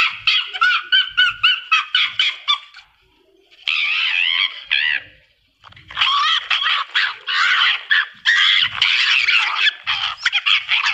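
Red fox calling: a quick run of short, high-pitched yelps, about five a second, then a single wavering cry about four seconds in, then another long run of calls.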